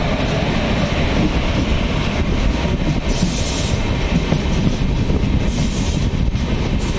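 Indian Railways passenger coaches passing close by on the next track, their wheels giving a steady rumble and clatter over the rails.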